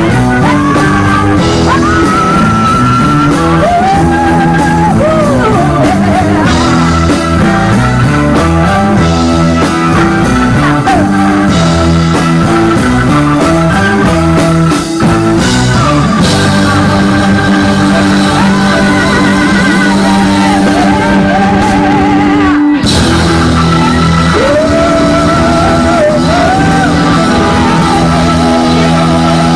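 A live electric guitar, bass and drums trio playing rock-fusion. The lead electric guitar plays bent notes with vibrato over the bass line.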